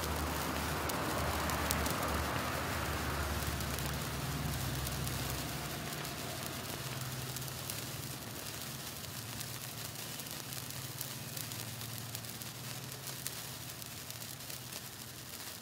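A gold wire sparkler burning: a steady fizzing hiss peppered with fine crackles, slowly fading, over a low background hum.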